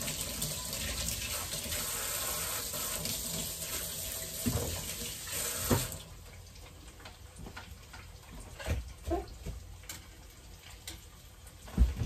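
Kitchen tap running into a sink for about six seconds, then shut off abruptly. A few light knocks and clatters follow, with a louder clatter near the end.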